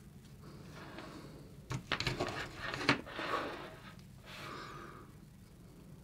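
Small clicks and scrapes from handling a small electronics module against a soldering iron, bunched about two to three and a half seconds in. A soft breath follows near the middle, over a faint steady hum.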